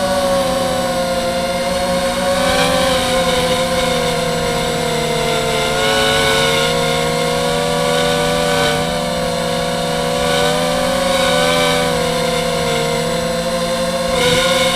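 Mini FPV quadcopter's motors and propellers whining steadily, the pitch rising and falling a little as the throttle changes.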